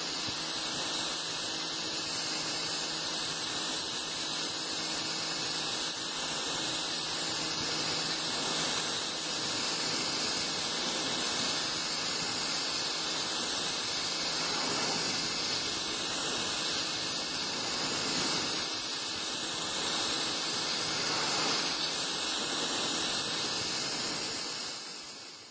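AR Blue Clean AR383 electric pressure washer spraying its jet onto a concrete sidewalk: a steady, loud hiss of spray with a faint, even hum beneath it. It cuts off suddenly at the very end.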